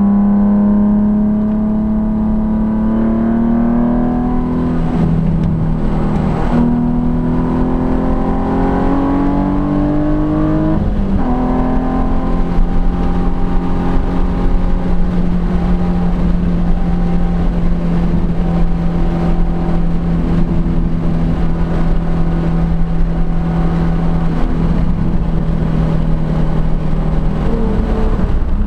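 2004 Nissan 350Z's 3.5-litre VQ35DE V6 with an HKS exhaust, heard from inside the cabin at full throttle on track. The engine note climbs for about ten seconds, drops sharply as it shifts up, then holds a steady pitch at high speed before falling away near the end.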